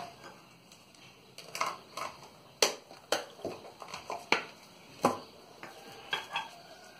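About ten scattered sharp clinks and taps of tableware: coffee cups set on saucers and a butter knife against a dish.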